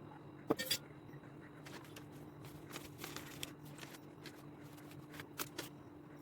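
Popcorn kernels in a hot pan, giving scattered sharp pops and clicks, roughly one or two a second, over a faint steady hum.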